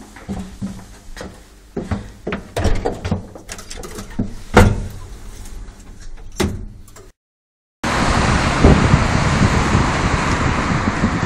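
Lift doors and cabin knocking and clicking, with a sharper knock about four and a half seconds in. After a short dropout, a loud steady rushing noise takes over.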